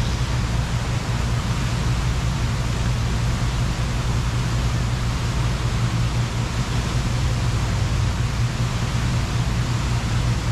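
Steady rushing and splashing of Buckingham Fountain's water jets falling into its basin, over a steady low rumble.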